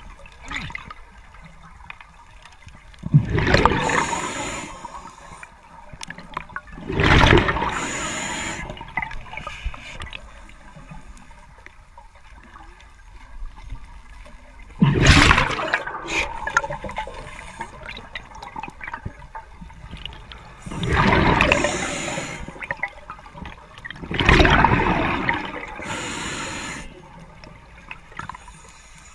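Scuba diver breathing through a regulator, heard underwater: about five loud rushes of exhaled bubbles, a few seconds apart, with quieter gurgling water noise between them.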